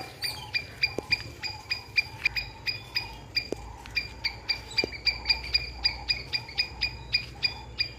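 Squirrel giving its alarm call: a long, steady series of sharp, high-pitched chips, about four or five a second, the scolding call a squirrel makes at cats.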